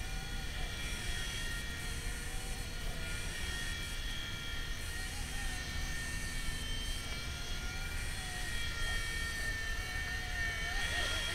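WLtoys V911 micro RC helicopter hovering: a steady high-pitched electric whine from its motors and spinning rotor, shifting slightly in pitch as the throttle is worked.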